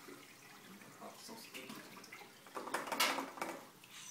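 Wort running from a stainless brew kettle's valve through plastic tubing into a glass carboy full of foam, a steady splashing trickle that grows louder for a moment about three seconds in.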